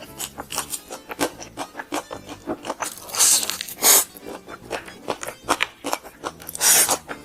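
Close-up crunching and chewing of crispy fried chicken skin: a dense run of crisp crackles, with three louder crunchy bites about three, four and just under seven seconds in. Soft background music plays underneath.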